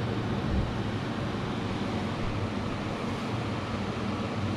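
Steady low hum under an even hiss: continuous machine background noise in a workshop, with no distinct knocks or tool sounds.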